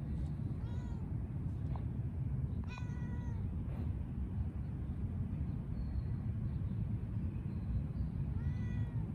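Cat meowing three times: short pitched meows about a second in, near three seconds (the longest), and near the end, over a steady low rumble.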